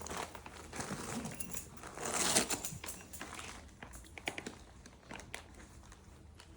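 Gift wrapping crinkling and rustling as a dog paws and bites at a present to open it. It is loudest about two seconds in, with scattered sharp crackles later.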